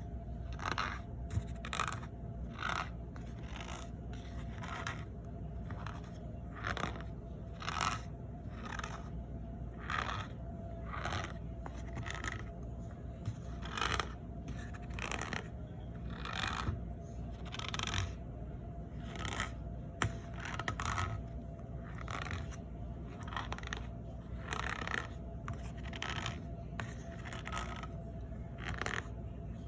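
Packed cornstarch being squeezed and pressed, giving repeated short squeaky crunches, roughly one or two a second at an uneven pace.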